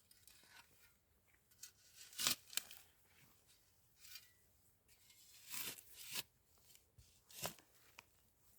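Short rustling and tearing sounds of vegetables and plants being picked and handled, in a few separate bursts; the loudest pair comes about two seconds in, with more near the middle and one near the end.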